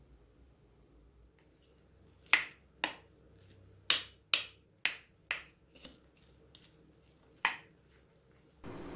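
Wooden spoon knocking against the bowl while mixing rice with fried eggs and soy sauce: about eight sharp knocks at uneven intervals, starting about two seconds in.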